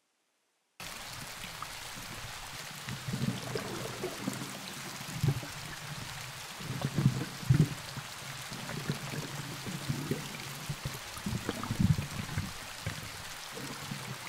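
Flowing water with irregular low gurgles and splashes over a steady rush. It starts abruptly about a second in and cuts off suddenly near the end.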